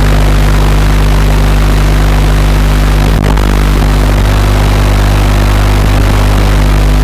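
Loud steady electrical buzz and hiss on the audio channel of a mini quad's analog video link, as recorded by the FPV goggles' DVR.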